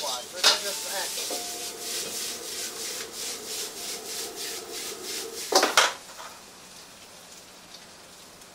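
Steel ladle stirring and scraping vegetables around a hot wok in quick repeated strokes, with food sizzling over a gas flame. About five and a half seconds in there is a loud metal scrape, after which the stirring stops and only a quieter steady hiss remains.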